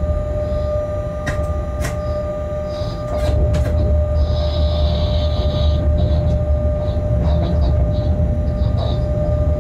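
Shunting locomotive rolling through yard points: a steady low rumble with a constant whine, sharp clicks as the wheels cross rail joints and switches about a second in and again around three and a half seconds, and a hissing noise from about four to six seconds in.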